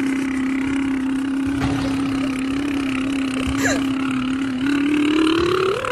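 A person's long, steady buzzing hum made with the lips pressed against a phone screen, held on one low pitch for about four and a half seconds, then rising in pitch near the end.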